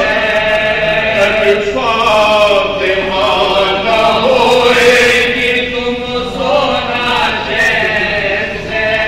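Men's voices chanting a soz, a Shia mourning lament, several singing together, with long held notes that slide up and down in pitch.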